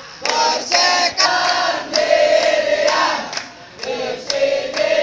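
Group of football supporters chanting and singing together in unison, with a sharp beat about twice a second under the voices.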